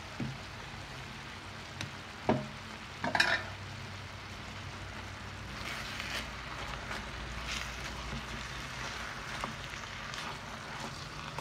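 Minced-meat filling sizzling steadily in a large frying pan as a wooden spatula stirs and scrapes it, with two sharp knocks about two and three seconds in. The sizzle is the liquid given off by the meat and onions cooking away until the filling is dry.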